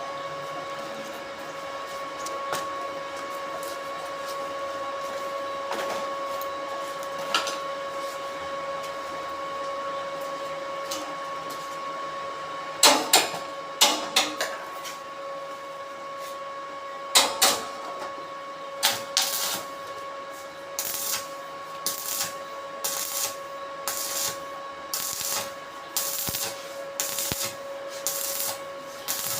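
A steady machine hum with a constant whine, joined about halfway through by sharp knocks in pairs, which settle near the end into a regular beat of a little over one a second.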